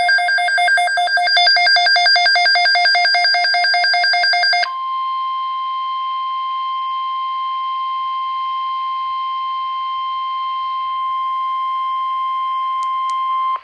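A fast, evenly pulsing electronic tone pattern lasts about four and a half seconds. It gives way to the NOAA Weather Radio 1050 Hz warning alarm tone, a single steady high tone held for about nine seconds that cuts off sharply. This tone signals that an urgent weather alert follows.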